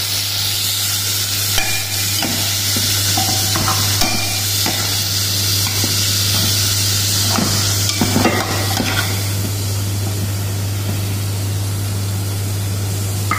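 Chicken pieces sizzling in hot oil with onion, ginger and garlic, with a little water just added to the pan, while a spoon stirs and scrapes against the pan now and then. The sizzle is steady and even.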